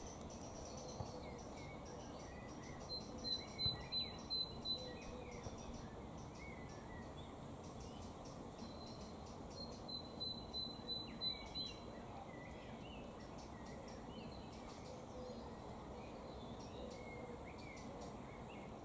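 Outdoor ambience with birds calling. Twice a bird sings a short run of about seven high, evenly spaced notes, the loudest sound here, while softer chirps come and go over steady background noise.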